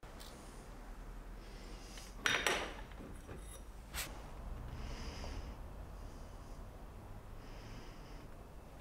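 Small plastic syringe drawing up paint thinners with a short sucking slurp about two seconds in, then a click. A few soft hisses follow as the thinner is squeezed out onto a metal part.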